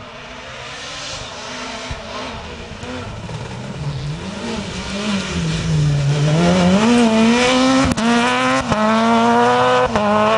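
Rally car engine at full throttle on a gravel stage, growing steadily louder as it approaches, its pitch dropping and climbing through gear changes before holding high and loud. Two short sharp cracks come about eight seconds in, over a hiss of tyres and flung gravel.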